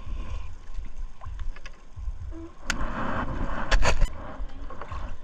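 Wet nylon gill net being hauled over a wooden boat's gunwale: rustling with a few sharp knocks about three to four seconds in, over a low rumble.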